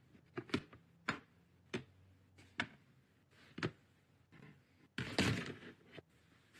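Clear plastic storage tubs and their lids being handled: a string of light plastic knocks and clicks, then a louder scrape lasting about a second, about five seconds in.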